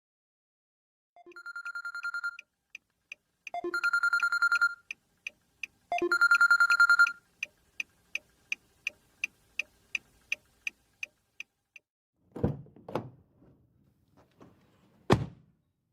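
Telephone bell ringing in three rapid-pulsed bursts of about a second each, each louder than the last, with a clock ticking about three times a second. The ticking stops near the end and gives way to two dull thumps and then a single sharp bang.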